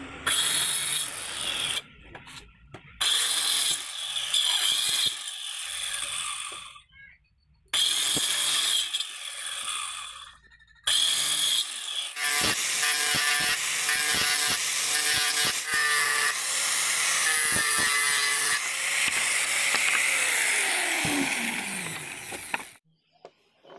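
Handheld electric cutter machine with a toothed wood blade, whining as it cuts through a wooden plank. The first cuts are several short stretches that start and stop abruptly, followed by a longer cut of about ten seconds. A falling tone near the end of that cut shows the motor winding down.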